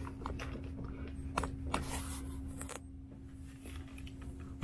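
Handling noises: a few light clicks and knocks, and a short rustling hiss about two seconds in, over a steady low hum.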